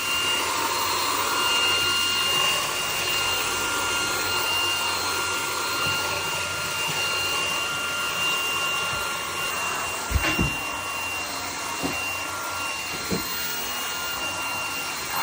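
Cordless stick vacuum running at a steady high whine over a rushing hiss of air, picking up bits of Play-Doh from the floor. A few short knocks come from about ten seconds in.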